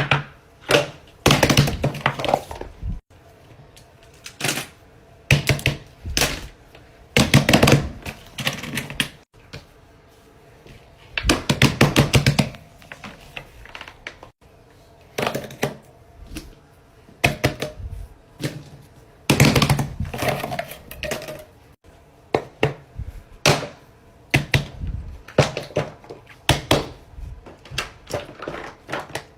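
Small objects being handled, making bursts of rapid clicking and tapping with short pauses of a second or two between the bursts.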